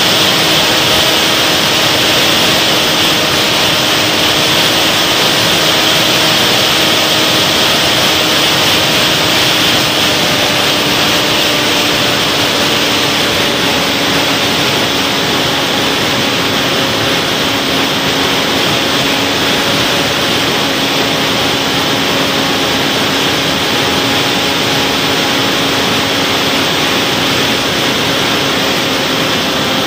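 Model aircraft's motor and propeller running steadily in flight, heard from a camera mounted on the airframe, with a rush of airflow over it. A faint hum in the sound sinks slightly in pitch over the half minute.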